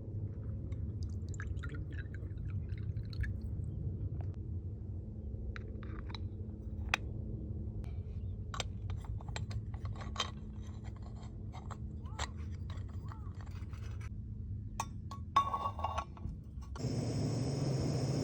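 A GSI stovetop espresso maker heating over a camp flame: a steady low rumble with scattered small metallic clicks and ticks. Near the end a loud steady hiss cuts in, the pot pushing coffee up through the spout as it comes to the brew.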